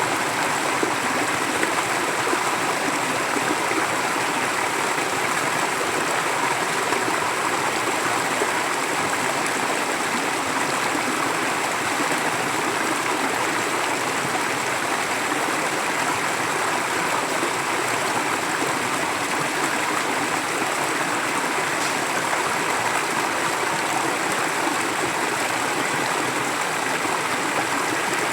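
Forest stream flowing steadily, an even rush of water without breaks.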